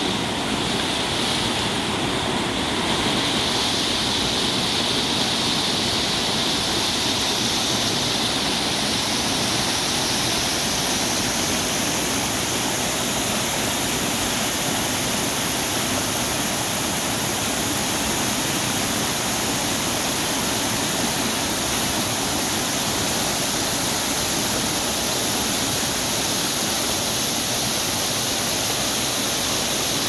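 Rain-swollen mountain stream rushing over rock slabs and small cascades: a steady, loud rush of water.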